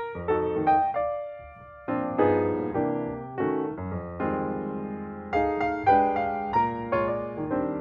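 Background piano music: notes and chords struck one after another, each fading as it rings.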